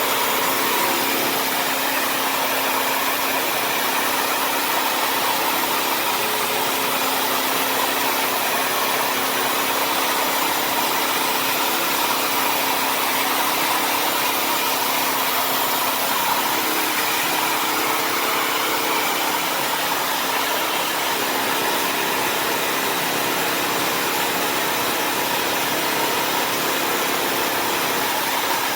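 Bissell CrossWave HydroSteam Pet wet-dry vacuum running steadily, with a constant motor whine over an even rushing noise as it cleans the floor.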